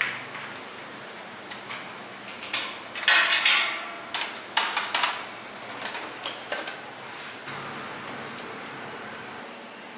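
Stainless steel stockpots and the metal frame of an electric immersion heater clanking and knocking as they are handled and set in place, with a cluster of sharp clanks between about three and seven seconds in.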